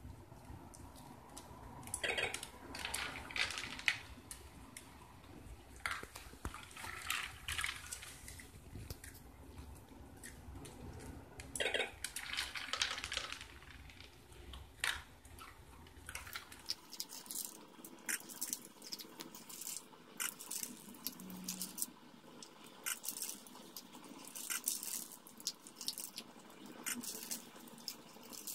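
Dog eating kibble from a food dispenser's tray, with irregular crunching and wet licking in short clusters and, later, many small clicks. A low hum underneath stops suddenly about halfway through.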